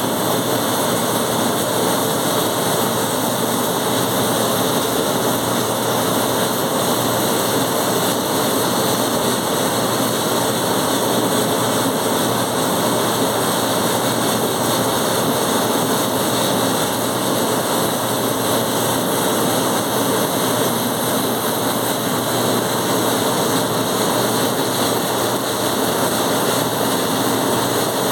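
Welding arc burning continuously: a loud, steady hiss with no pitch, unbroken for the whole stretch.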